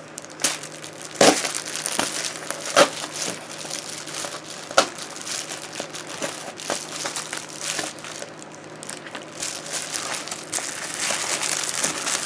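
Packaging being handled and opened by hand: irregular crinkling and rustling, with several sharp crackling snaps.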